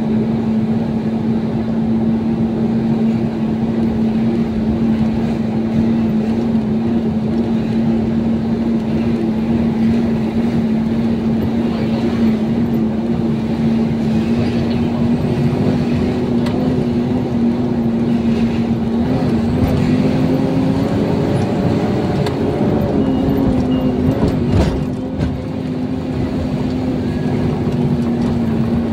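Truck engine droning steadily from inside the cab while driving, its pitch rising a little about two-thirds of the way through. One sharp knock near the end.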